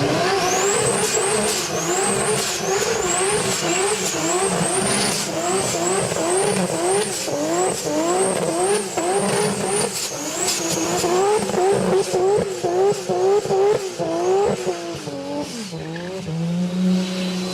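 Turbocharged car engine revved hard in quick repeated pulls, about two a second, with a high turbo whistle rising and falling with each pull. Near the end the revs fall away and the engine settles to a lower, steadier note.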